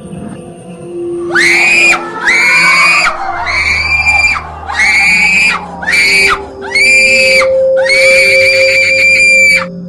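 Seven shrill, high-pitched screams in quick succession, each jumping up and holding one pitch; the last is the longest. A low steady drone runs underneath.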